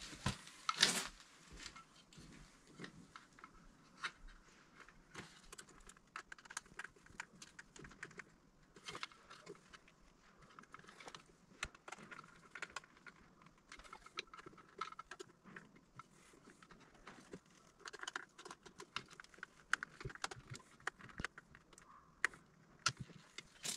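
Scattered light clicks, taps and rustles of hand wiring: a screwdriver and stripped wires worked into the terminals of an L14-30 generator inlet connector, with one louder clack about a second in.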